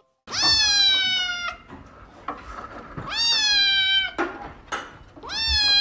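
Grey-and-white kitten meowing: three long meows about two and a half seconds apart, each rising quickly and then sliding slowly down in pitch.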